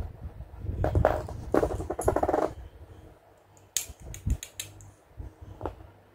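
Small plastic toy jars being handled: a couple of seconds of scraping and rustling, then a quick run of light plastic clicks and taps, and one more click near the end.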